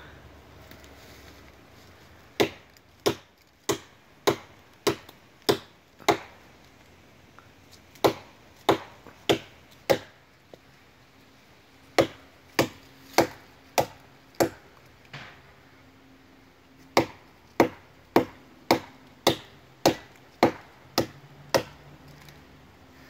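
Axe chopping into a standing tree trunk: sharp, ringing chops about one and a half a second, in four runs with short pauses between them.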